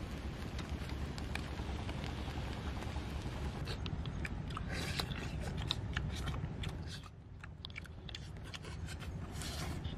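Eating sounds as grilled fish is picked apart by hand and chewed: a run of small clicks, smacks and bites over a steady low background rumble. The clicks start a few seconds in.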